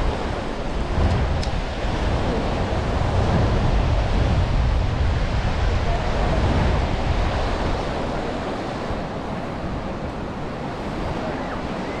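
Sea surf washing onto a beach, with wind buffeting the microphone as a low rumble. The wash swells louder through the middle and eases off later.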